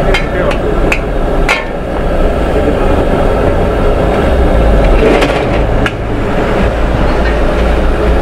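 Metal spatula clanking and scraping against a large wok as noodles are stir-fried, with sharp clanks several times in the first second and a half and again about five to six seconds in. Under it the steady rush of the gas wok burner.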